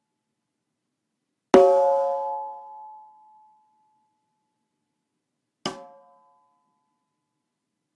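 14x7 segmented Ipe-wood snare drum struck twice: a loud hit about one and a half seconds in that rings out for about two seconds, then a softer, shorter hit about four seconds later.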